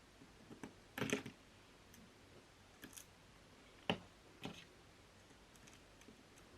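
Scattered small clicks and taps of a screwdriver and a tiny screw against the NUC's M.2 slot while trying to fit the SSD's retaining screw. The loudest is a short rattle of clicks about a second in, with single taps near three and four seconds.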